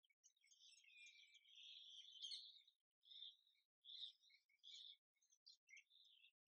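Faint chirping and twittering of small birds, running on for the first few seconds and then breaking into short separate calls.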